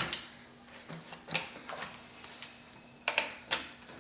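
Scattered sharp metal clicks and clinks of tools and wheel hardware being handled during a center-lock wheel removal, with a quick cluster of clicks about three seconds in, over a faint steady hum.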